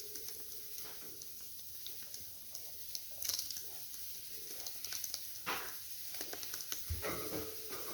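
Pet budgerigars in a cage, heard only as faint, scattered scratching and clicking, a little louder around three and five and a half seconds in.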